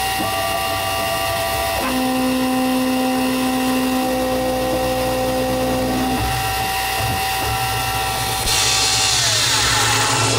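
CNC-converted X2 mini mill running a drilling program, a 1/8-inch twist drill going into an aluminium plate: steady spindle and stepper-motor whine whose pitch jumps as the axes move. About eight seconds in a hiss comes in, and near the end one whining tone slides down.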